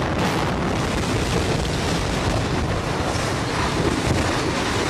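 Steady rumbling rush of a concrete high-rise tower block collapsing during demolition, with wind buffeting the microphone.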